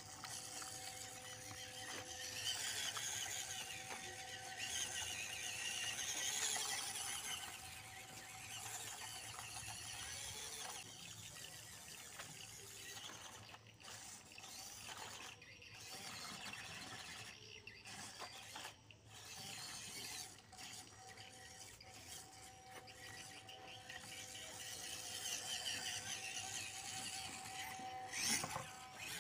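WPL D12 RC mini truck driving: its small electric motor and gearbox whine at a high pitch, rising and falling as it speeds up and slows. A sharp knock comes near the end.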